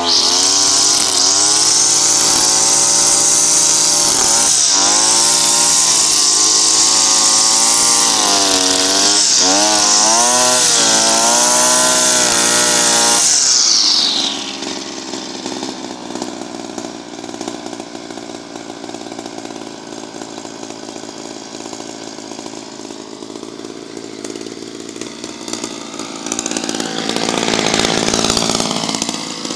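Makita EM3400U brushcutter's two-stroke engine running at full throttle while its nylon trimmer line cuts grass, the engine pitch wavering as the line takes load. About 14 seconds in the throttle is let off and the engine drops to a quieter, lower running, then revs up and back down briefly near the end.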